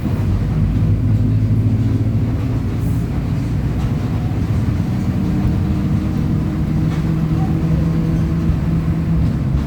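Mercedes-Benz OF 1722M city bus running under way, its diesel engine at high revs and the differential growling. The low drone holds steady and changes tone about halfway through.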